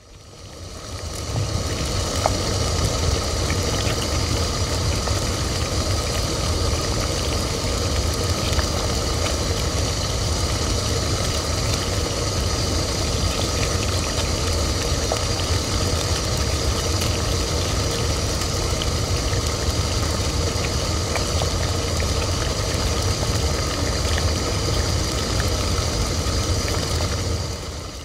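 Tea kettle heating water toward the boil: a steady low rumble and hiss with several faint high tones held over it. It fades in at the start and fades out at the end.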